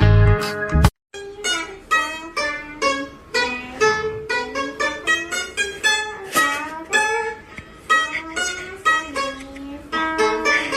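Background music: a plucked string instrument playing a quick run of notes, after a different louder passage with bass that cuts off about a second in.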